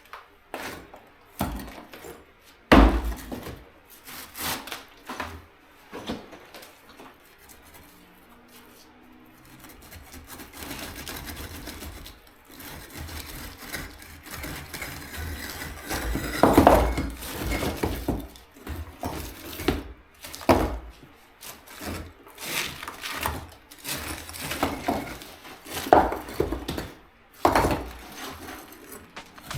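Irregular knocks, scrapes and clatter of old oven bricks being knocked loose from their mortar and handled, with a hard blow about three seconds in and a run of louder hits past the middle.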